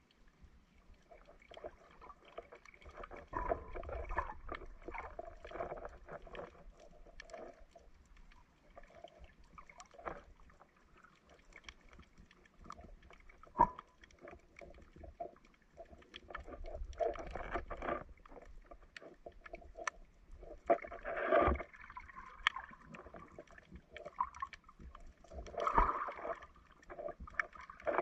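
Water recorded underwater in shallow sea: muffled sloshing and gurgling that swells and fades every few seconds, with a few sharp clicks.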